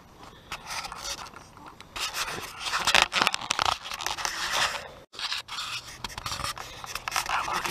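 Rustling and scraping of footsteps through grass, with handling noise rubbing on the microphone, broken by a brief dropout about five seconds in.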